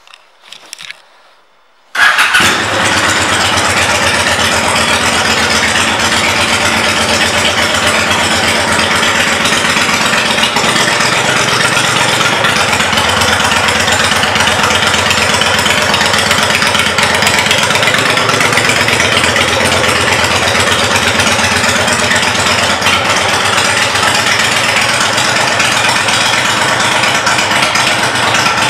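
Honda VLX Deluxe's V-twin with aftermarket exhaust pipes, started about two seconds in after a few faint clicks, then idling loud and steady.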